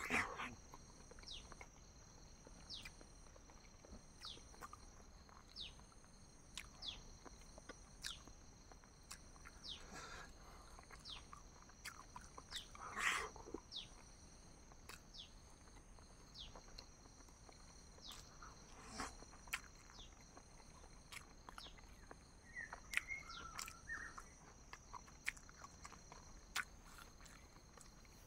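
Faint chewing and wet mouth clicks from eating boiled eggs, scattered irregularly, with a louder bite or chew twice. A steady high-pitched hum runs behind.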